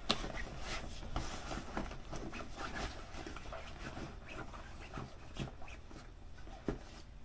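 Rustling and scuffing of a messenger bag's fabric and its waterproof lining as a leather-covered notebook is worked down into the main compartment, with small irregular clicks and taps.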